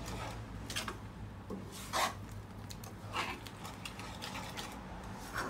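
A spoon scraping and stirring thick nam prik pao chili paste around a nonstick frying pan, in separate rasping strokes about once a second.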